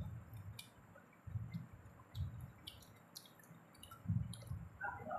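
Close-up eating sounds: soft, irregular chewing and mouth noises from eating chatpate, with scattered sharp clicks.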